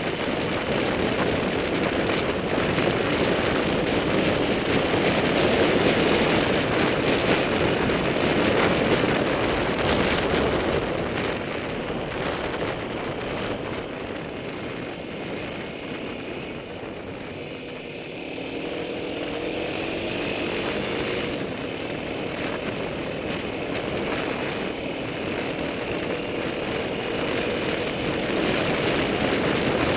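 Dual-sport motorcycle riding a gravel road: the engine runs steadily under the rush of wind and tyre noise. Past the middle the engine pitch rises and falls with the throttle.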